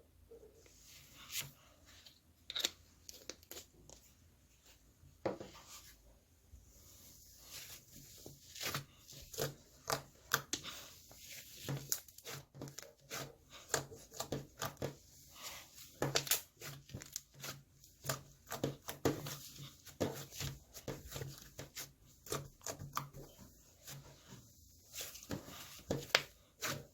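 A run of short, irregular clicks and crinkling rustles, several a second, sparse at first and busier from about a quarter of the way in.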